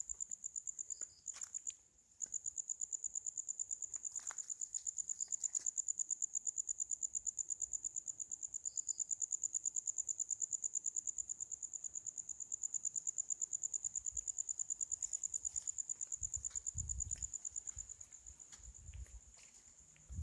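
A cricket trilling at night: a steady, fast, pulsing high-pitched trill that breaks off briefly about two seconds in and fades near the end. Low dull rumbles come in during the last few seconds.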